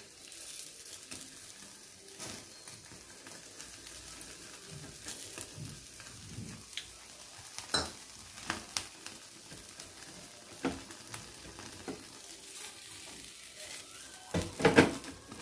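Oil-brushed whole fish sizzling softly in a wire grill basket over a gas burner flame, with scattered small pops and crackles. Near the end the metal basket clatters as it is lifted and turned.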